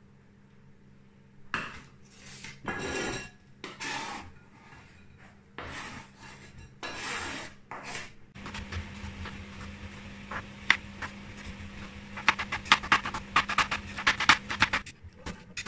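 A kitchen knife scraping chopped vegetables across a plastic cutting board and onto a plate. About twelve seconds in, quick, even chopping on the plastic board starts, about six knocks a second, over a low steady hum.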